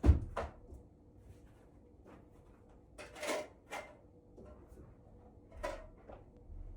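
Kitchen handling noises: a sharp knock at the very start and a softer one just after, then a short rustling scrape with a click a few seconds in, and another clatter near the end, of the kind a drawer or cupboard makes being worked.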